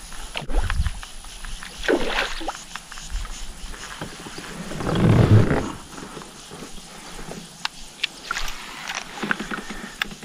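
Water sloshing and scattered knocks around a fishing kayak, with one louder rush of sound about five seconds in.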